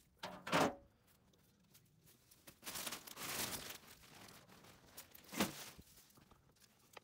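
Scrap being picked up and handled by hand for loading: a few short knocks and a couple of seconds of rustling, fairly faint.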